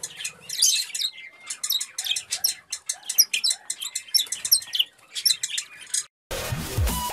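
Many small birds chirping and squawking at once in quick, overlapping high calls, which cut off about six seconds in. Electronic music with deep, falling bass sweeps starts near the end.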